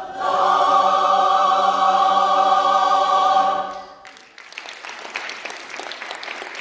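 Large mixed choir holding a long sustained final chord, which cuts off a little under four seconds in; the audience then breaks into applause.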